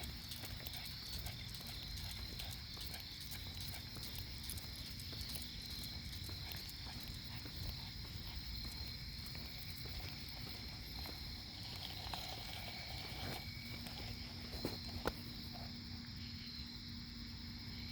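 Night ambience of insects trilling steadily, a continuous high-pitched chorus, over a low rumble and scattered faint ticks. A couple of sharper knocks come about fifteen seconds in.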